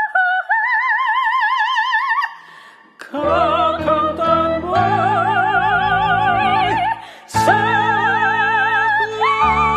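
Operatic kundiman singing: a woman's voice holds a high note with wide vibrato, breaks off, and about three seconds in piano chords come in under a woman and a man singing together in sustained, vibrato-laden notes. The duet pauses briefly near the seventh second and then resumes.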